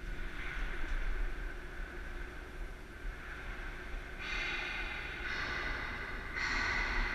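A person breathing close to the microphone, with three long breaths of about a second each in the second half, over a steady low hum.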